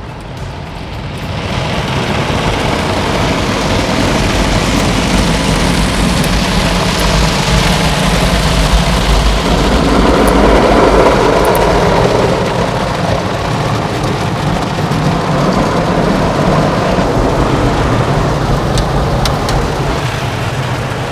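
Automatic car wash running over a car: a dense, rain-like hiss of water spray over a low machine rumble. It builds about a second in and is loudest around the middle.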